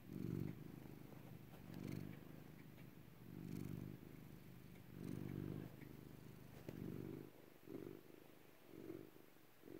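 Domestic cat purring, the purr swelling and fading with each breath about every second and a half, then about once a second near the end.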